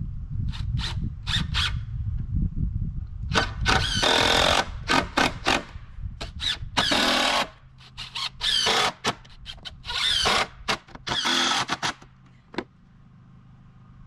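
Cordless power driver sinking screws into wooden deck boards: a string of whirring bursts with a whine, several short ones and a few longer runs of about a second as each screw goes down.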